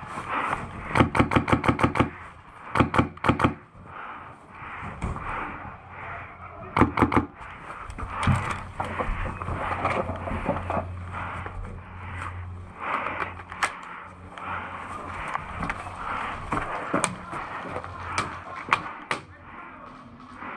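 Airsoft guns firing rapid bursts of fast, evenly spaced clicking shots, three bursts in the first seven seconds, followed by scattered single shots and knocks.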